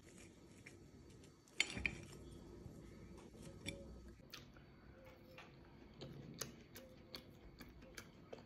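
A metal fork clinking and scraping faintly on a ceramic plate while cutting a piece of waffle. There is a cluster of louder clinks about two seconds in, then scattered single taps.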